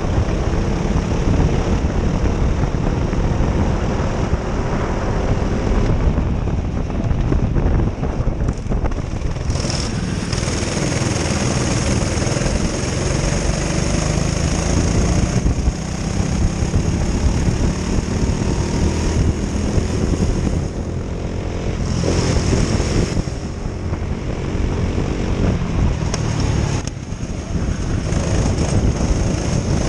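Onboard sound of a Prokart's twin Honda engines at racing speed, the engine note rising and falling as the kart accelerates down the straights and lifts for the corners, with a brief drop in level twice where the driver lifts off.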